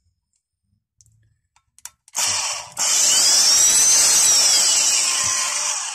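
Old Wolf electric drill being test-run: switched on briefly, then run for about three seconds at full speed with a high whine that rises and then sinks in pitch as it slows, running smoothly and in working order.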